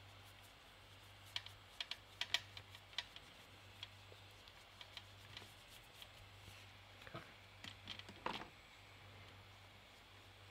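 Quiet, scattered small clicks and taps of a paintbrush working watercolour onto paper and dabbing in a metal watercolour paint tin, with a slightly stronger tap about eight seconds in. A faint steady low hum runs underneath.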